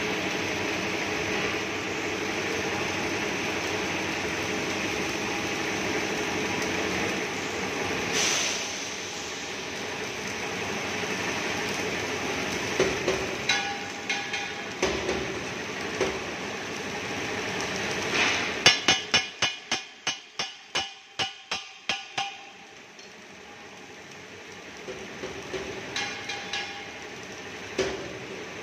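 An LPG cylinder circumferential seam welding machine runs with a steady hum. About two-thirds of the way through comes a quick run of about a dozen sharp metal strikes, roughly three a second, with scattered clinks before and after.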